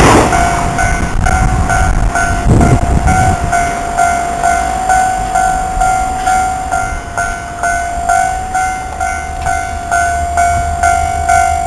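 Japanese railway level-crossing warning bell ringing steadily, about two dings a second. The noise of a passing train cuts off right at the start, and a short low rumble comes about two and a half seconds in.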